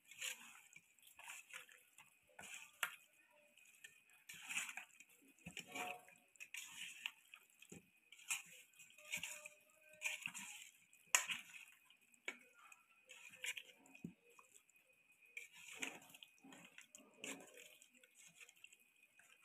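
Faint, wet squelching of a hand kneading raw chicken pieces in a yogurt, mustard-oil and spice marinade in an aluminium bowl, coming in irregular short bursts.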